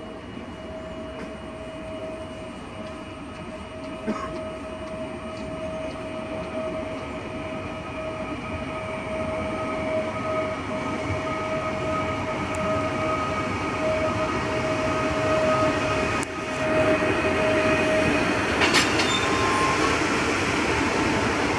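ED74 electric multiple unit approaching and passing close by, growing steadily louder, with a steady high whine. A sharp crackle comes near the end.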